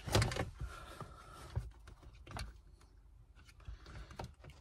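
Scattered light clicks and knocks of plastic interior trim and its retaining clips being handled and pulled out around a car's shifter.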